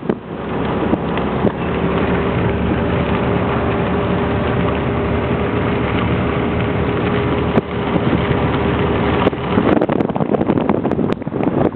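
An engine running steadily at an even pitch. About two seconds before the end it gives way to wind buffeting the microphone.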